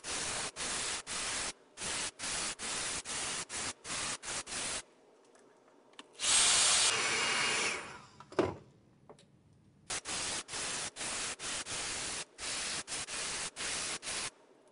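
Airbrush hissing in short, quick bursts, about three a second, as the trigger is pulsed to spray paint heavily through a mesh stencil. The spraying pauses near the middle, where a louder continuous rush of air runs for about a second and a half and ends in a knock. The pulsed spraying then resumes.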